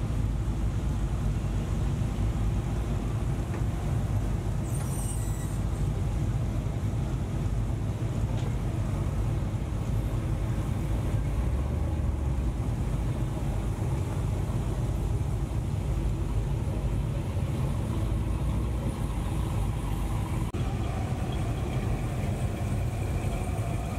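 Classic Chevrolet C10 and GMC pickups rolling slowly past one after another, their engines running at low speed in a steady low drone. A brief hiss comes about five seconds in.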